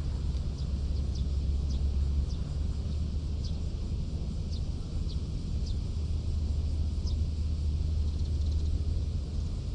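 Wind rumbling on the microphone, with short high bird chirps every second or so.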